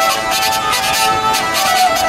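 Two hurdy-gurdies playing a tune over a steady drone, with an even rhythmic buzzing pulse running through it.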